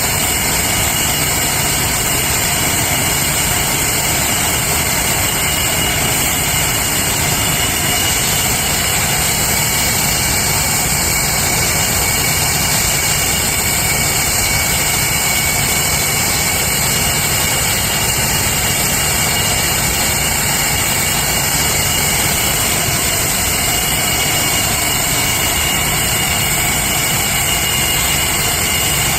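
An English Electric Lightning's twin Rolls-Royce Avon turbojets running steadily at low, taxi power: a loud, even rush of jet noise with a high whine held on steady tones.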